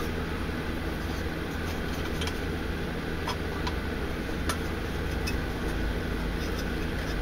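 A handful of faint, light clicks and ticks, spread between about two and five and a half seconds in, over a steady low background rumble.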